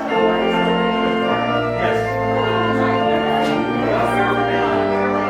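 Instrumental church music: slow, held chords over sustained bass notes that change every second or two.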